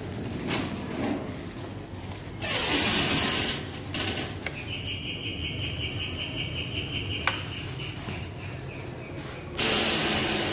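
Electric doorbell ringing when its wall button is pressed: one high, rapidly pulsing buzz lasting about three seconds, ending with a click as the button is released. A rustling hiss comes shortly before the bell, and a louder one near the end.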